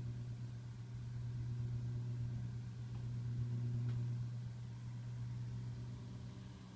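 Low, steady electrical-sounding hum from a desktop PC, which the owner suspects comes from a new 3 TB hard drive on the way out. Its loudness swells and eases slowly, with one faint tick about four seconds in.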